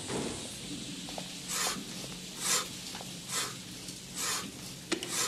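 Slow footsteps scuffing on a hard floor, about one step a second, over a low steady hum, with a sharp click near the end.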